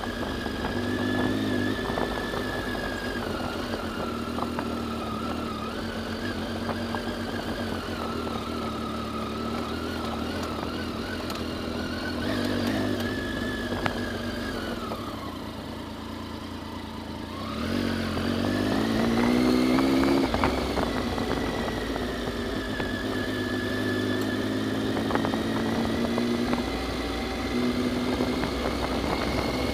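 Triumph motorcycle engine running under way on a dirt track, its note rising and falling with the throttle; about halfway through it drops away and goes quieter, then climbs again as the bike accelerates. Tyre and gravel noise and occasional knocks from the rough surface run underneath.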